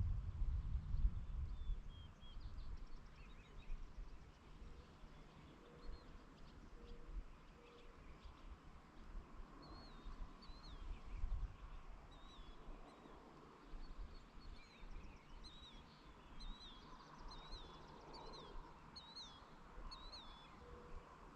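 Small birds chirping: short, high chirps, sparse at first and then repeated about once a second through the second half. Under them is a faint low rumble, loudest at the very start.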